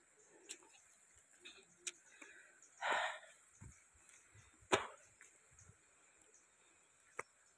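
Footsteps on a dirt trail littered with dry twigs and leaves: a few scattered crunches and snaps with a short rustle about three seconds in, the sharpest snap just before five seconds.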